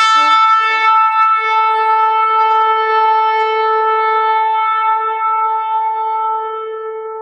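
Shofar blown in one long held note, wavering slightly in its first second, then steady and slowly fading near the end.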